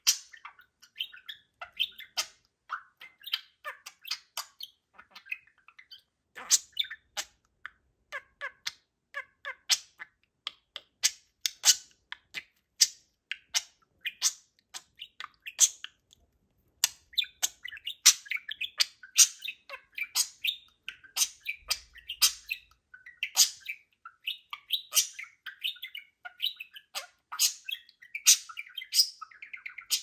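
Budgerigars chirping and chattering: a quick, unbroken stream of short, sharp, high chirps.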